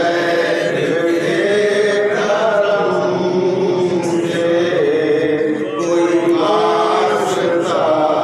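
A man's voice singing a manqabat, a Sufi devotional praise poem, in a chanting style with long held notes that bend up and down in pitch.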